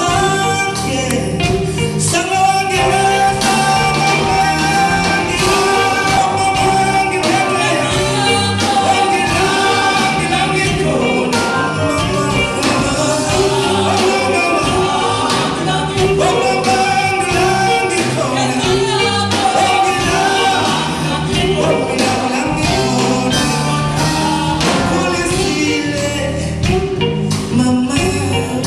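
Live band music with a male lead singer on a handheld microphone, over electric guitar, keyboard and drums, with a steady beat.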